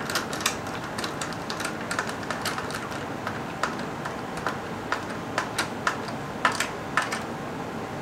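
Screwdriver turning a small bolt into a lock nut on a plastic handle: a run of light, irregular clicks and ticks, a few a second.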